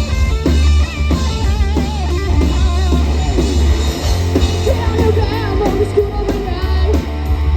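Live rock band playing: electric guitar with wavering, bent lead notes over bass guitar and a drum kit.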